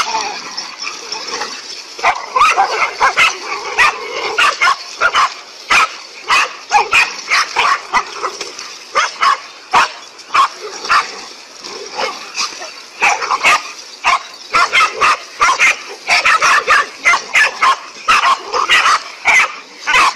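Several dogs barking at a snake they have cornered and are attacking: rapid, overlapping barks, several a second, with yips among them.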